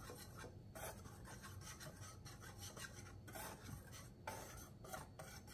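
Wire whisk stirring dry flour breading in a glass bowl: faint, repeated soft scraping strokes of the wires through the powder and against the bowl.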